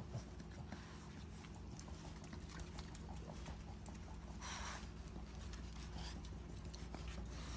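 French bulldog puppies shuffling about in a wire crate: faint scattered clicks and rustles over a low steady hum, with one short breathy rush about four and a half seconds in.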